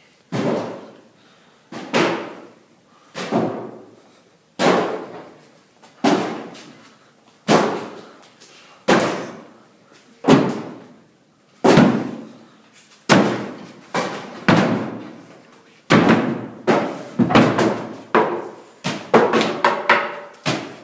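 Loud thuds at a slow, even pace, about one every second and a half, each ringing out briefly before the next; they come faster near the end.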